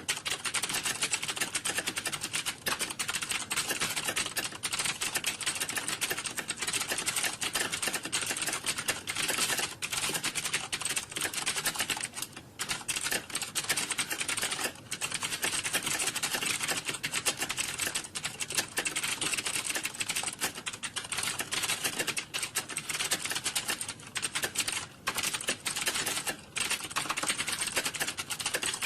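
Computer keyboards being typed on quickly, a dense and steady clatter of overlapping key clicks, with a couple of very brief lulls.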